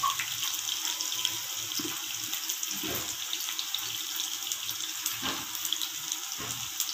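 Masala-coated small fish frying in hot oil in a nonstick pan: a steady sizzle with fine crackling. A few soft knocks come as the pieces are moved about in the pan by hand.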